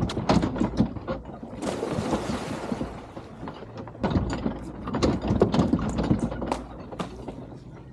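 Running footsteps and a hydrofoil board knocking and clattering on wet wooden dock planks, many quick sharp knocks in irregular runs. About two seconds in there is a stretch of hiss lasting roughly a second.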